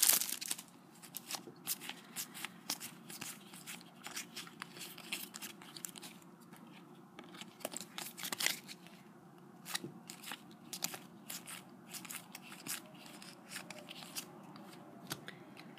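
Foil trading card packet crackling and tearing as it is ripped open by hand, then the crisp clicks and rustle of the cards as they are sorted through. The crackles come thick and irregular at first and thin out toward the end.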